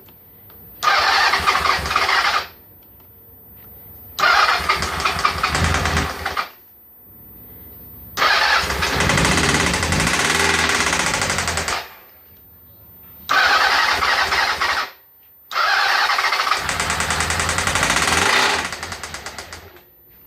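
1997 Honda CB750 air-cooled inline-four engine revved in five bursts of one to three seconds, falling back to a much quieter idle between them. It has a ringing knock from inside the engine case, which the owner suspects is a stretched auxiliary drive chain and a worn chain tensioner.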